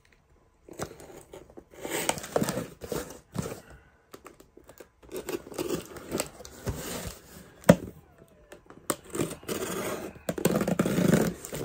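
A cardboard shipping box being opened by hand: packing tape torn off and the cardboard rustling in irregular rips and crinkles, with one sharp click about two thirds of the way through.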